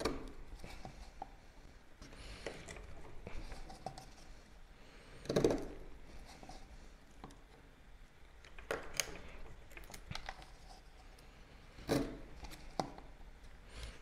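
Demko Shark Cub folding knife cutting into a thin strip of wood: about half a dozen separate scraping cuts with small knocks, the loudest about five seconds in.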